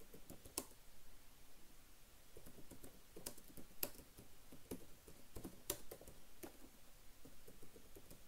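Computer keyboard being typed on: faint, irregular keystroke clicks.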